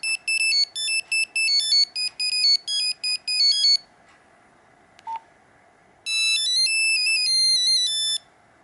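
Nokia 5125 mobile phone playing its built-in monophonic ringtones. A fast melody of short beeping notes stops about four seconds in, a single short beep follows about a second later, then a different beeping melody plays for about two seconds.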